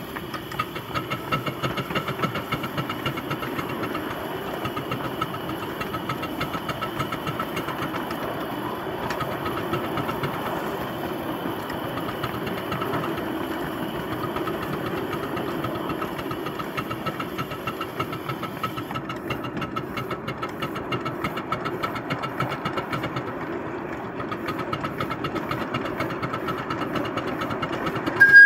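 Garden-scale model locomotive running along its track, a steady, rapid mechanical clatter from its wheels and running gear, the ticking growing more distinct in the last third.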